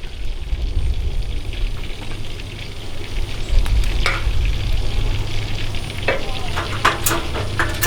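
Breaded chicken fried steak frying in hot grease, a steady sizzle, with a few light utensil clicks about four and seven seconds in.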